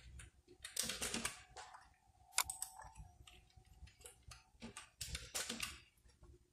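Computer keyboard keys clicking in a few short, quiet runs of key presses while code is edited.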